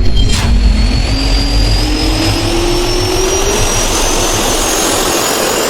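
Intro sound effect: a loud, jet-engine-like whoosh with a low rumble and tones that climb slowly in pitch, cutting off suddenly at the end.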